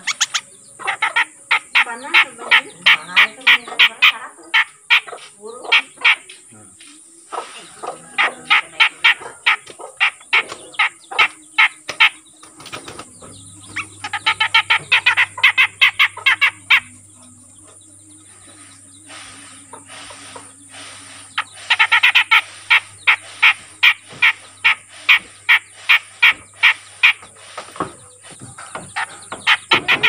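A caged cucak jenggot (grey-cheeked bulbul) calling in four bouts of quick, sharp repeated notes, with short pauses between bouts. It is a young untrained bird that has just begun to call regularly.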